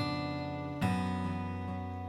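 Background music of sustained chords, a new chord struck at the start and another just under a second in.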